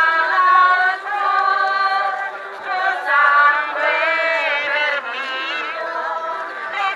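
A crowd of people singing a hymn together, many voices overlapping on held, wavering notes.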